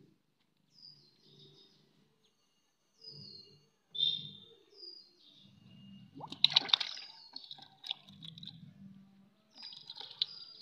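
A small fish splashing in a bucket of water as it is dropped in, the loudest sound, a little past the middle, with a few smaller splashes near the end. A bird repeats a short falling chirp about once a second throughout.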